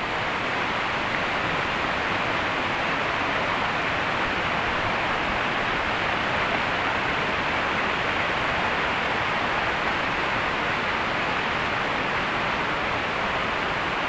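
Steady rushing of a river and small waterfalls pouring over rocks.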